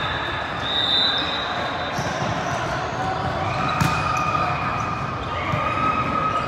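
Indoor volleyball play in a large, echoing sports hall: a volleyball is struck sharply once about four seconds in, over a steady hubbub of players' and spectators' voices.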